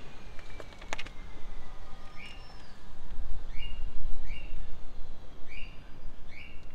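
A small bird chirping outdoors: short single chirps repeated every second or so, over a low steady background rumble, with one sharp click about a second in.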